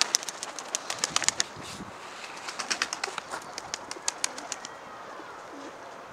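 Flock of tumbler pigeons on bare gravelly ground, giving quick runs of sharp taps and clicks in the first second and a half and again from about two and a half to four and a half seconds in, then quieter.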